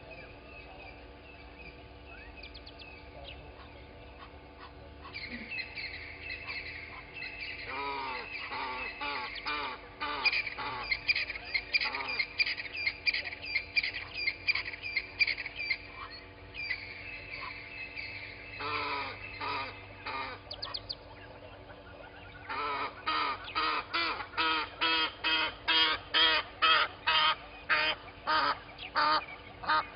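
Birds calling: runs of loud, honking calls repeated about two to three times a second, with a long run starting about two-thirds of the way in, over a steady background of twittering birdsong.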